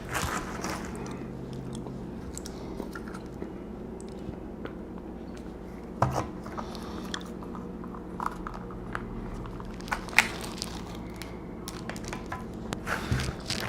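A person biting into and chewing a Burger King Whopper up close, with scattered crunches and clicks over a steady low hum.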